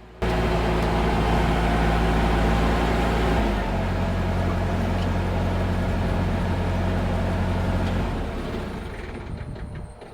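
Skid steer diesel engine running hard while lifting a very heavy log. Its pitch drops about three and a half seconds in as the engine takes the load, and it fades away near the end.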